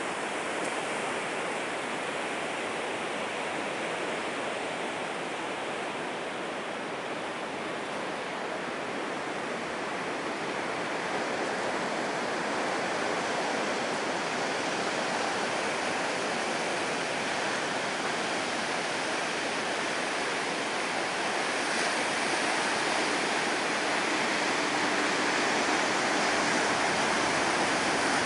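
Ocean surf from a hurricane swell breaking on a rocky shore: a steady, even rush of waves that grows slowly louder over the second half.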